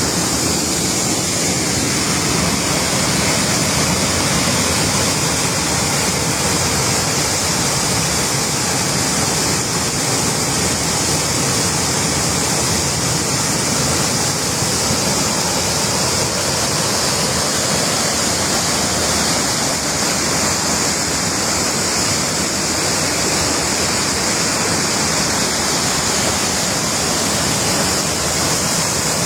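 Waterfall: water pouring and splashing with a steady, unbroken rush.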